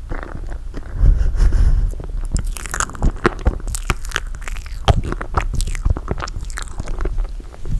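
Close-miked mouth sounds of eating toasted marshmallow: sticky chewing with many small wet clicks and smacks.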